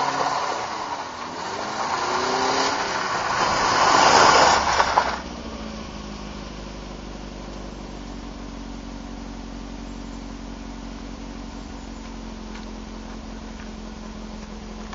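Alfa Romeo 33's flat-four engine driving the car up close, its note changing in pitch and growing louder to a peak about four seconds in. It then drops abruptly to a steady idle.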